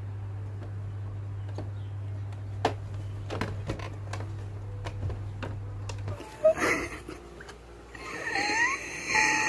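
A few sharp plastic clicks and knocks as the lid of a Silhouette Portrait 3 cutting machine is handled and shut, over a steady low hum. The hum stops about six seconds in, and near the end a high voice is heard.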